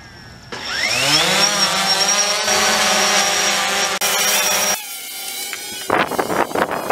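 DJI Phantom 3 quadcopter's motors and propellers spinning up about half a second in, the pitch rising as it lifts off, then a steady loud buzzing hum. Just before five seconds in it drops to a fainter hum, with a few loud rustles near the end.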